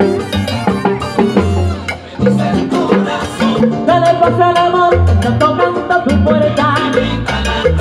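Live salsa band playing, with a steady bass line, timbales and other percussion, and sustained melody lines over them.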